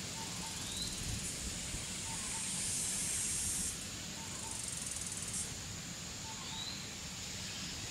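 A high, hissing insect buzz starts about a second in, swells, breaks off briefly and stops after about five seconds, over a steady insect hiss. A bird gives two short rising chirps, one near the start and one near the end.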